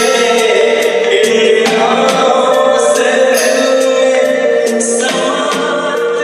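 Ringtone music: a sung, choir-like vocal melody over sustained chords and a steady beat of about two ticks a second.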